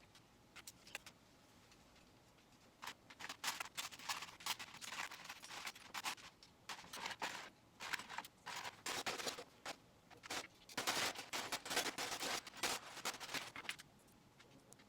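Small plastic Lego pieces clicking and clattering in quick, dense runs as they are handled, from about three seconds in until near the end.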